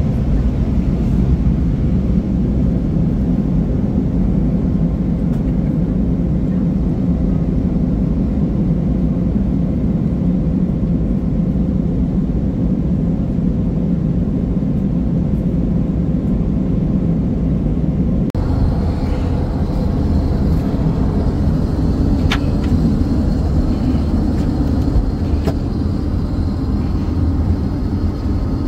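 Steady cabin noise of an Airbus A340-600 in cruise flight: a low, even rush of airflow and engine drone. About 18 seconds in it changes abruptly to a slightly different steady hum with a faint high whine, broken by a few sharp clicks.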